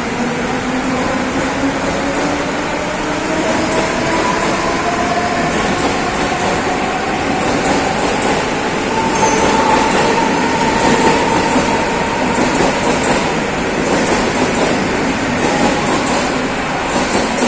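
Mumbai suburban electric local train (EMU) pulling out of a station and gathering speed. Its traction motors whine and rise steadily in pitch over a continuous running noise from the wheels on the rails.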